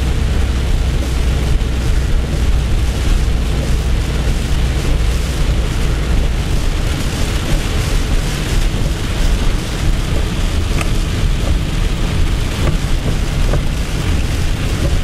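Heavy rain beating on a pickup truck's windshield and roof, heard from inside the cab while driving, as a loud even hiss over a low rumble from the truck. The rumble eases a little about halfway through.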